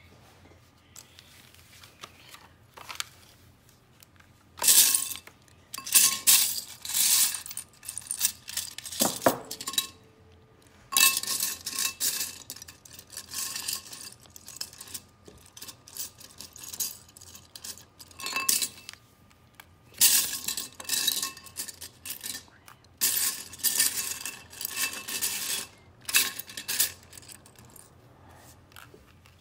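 Loose plastic Lego pieces rattling and clinking against a ceramic bowl as a hand rummages through them for parts, in several bursts of clatter a few seconds long with quiet pauses between.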